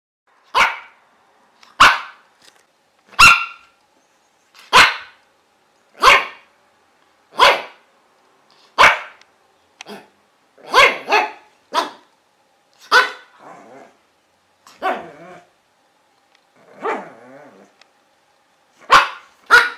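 A dog barking repeatedly, single short barks a second or two apart, with a quick double bark about eleven seconds in and another near the end.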